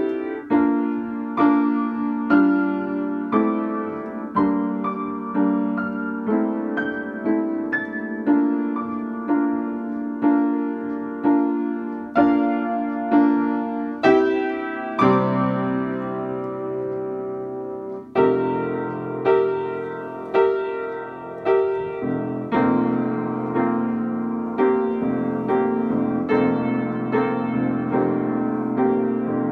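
Solo upright piano playing a slow, gentle piece, a note or chord struck about once a second and left to ring and fade. About halfway through, a deeper chord sounds and lower bass notes join in, and the playing grows softer near the end.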